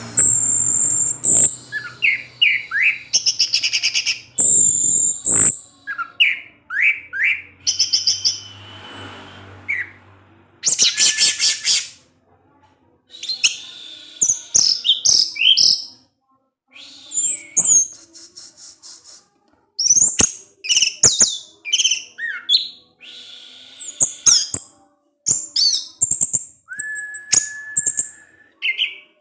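Orange-headed thrush singing a varied song of high whistles, slurred notes and fast trills, in short phrases broken by brief pauses.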